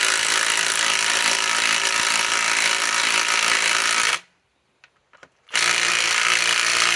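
Cordless compact impact wrench hammering as it drives a lag bolt into a log. It runs for about four seconds, stops for a second or so, then runs again.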